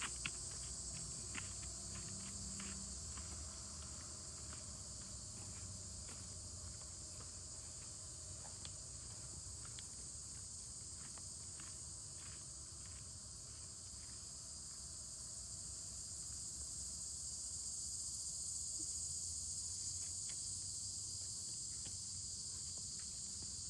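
Steady, high-pitched chorus of insects such as crickets, unbroken throughout, with soft scattered clicks of footsteps on the trail.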